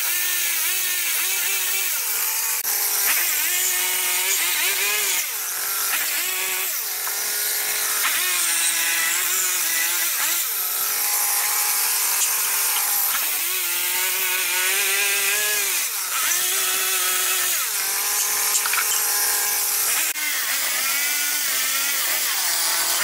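Chainsaw running continuously while cutting into a wooden log. Its engine pitch rises and dips every few seconds as the chain bites into the wood and frees.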